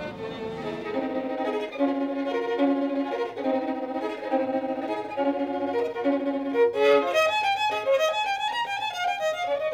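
Violin playing a mariachi melody in steady repeated bow strokes, changing about seven seconds in to a quicker, higher run of notes.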